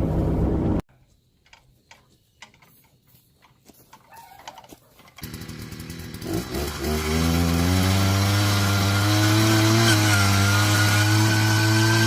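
Small gasoline engine of a powered post-hole auger starting up about five seconds in, then coming up to speed and running steadily, after a few quiet seconds of faint clicks.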